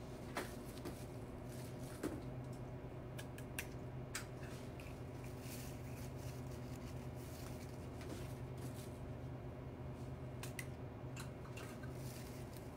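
Flower stems being handled and pushed into an arrangement: faint rustling of foliage with a few short, sharp clicks at irregular moments, over a steady low hum.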